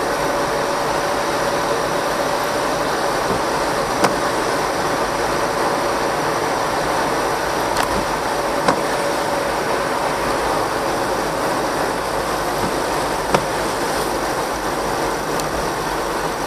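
Steady road noise of a moving car heard from inside the cabin, with tyre hiss on a wet road and a steady tone that fades about halfway through. A few short sharp clicks or knocks break in, one about four seconds in.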